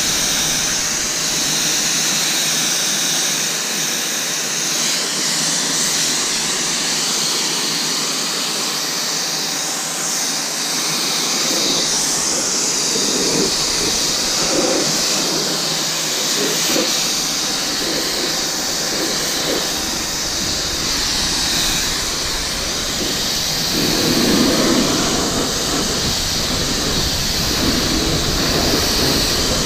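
Kranzle 1122TST pressure washer's high-pressure water jet rinsing a car: a steady spray hiss, turning heavier and more uneven about halfway through as the jet hits different parts of the body.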